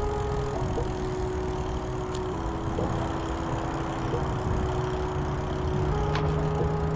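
Background music: sustained chords that change pitch in even steps about every two seconds, with a deeper bass note coming in about five seconds in, over a steady low rumble.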